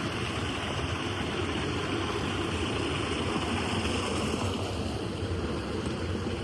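Steady rushing of flowing water, an even unbroken noise with no distinct events.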